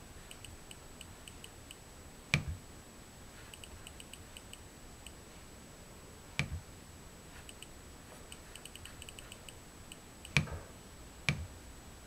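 First-generation Nest Learning Thermostat being used to key in a password: runs of faint ticks as the outer ring is turned from character to character, and four louder clicks as the unit is pressed in to select a character, the last two close together near the end.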